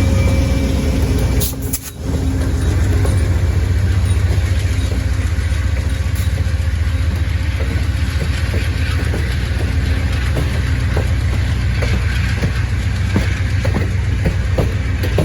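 Amtrak Auto Train rolling slowly out of the station: a steady low rumble that dips briefly about a second and a half in, with light clicks that come more often near the end.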